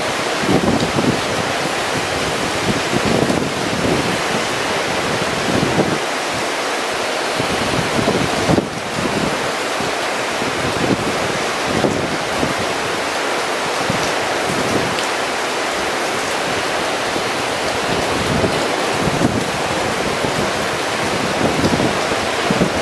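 Typhoon wind and rain: a steady hiss of heavy rain with the wind gusting, its gusts buffeting the microphone in irregular low swells.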